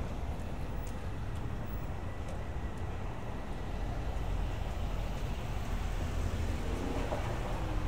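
Steady low rumble of downtown street traffic, with a brief whine that bends in pitch near the end.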